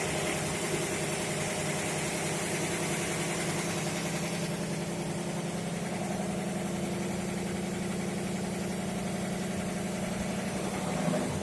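Fire pump engine running steadily at constant speed, a continuous even drone.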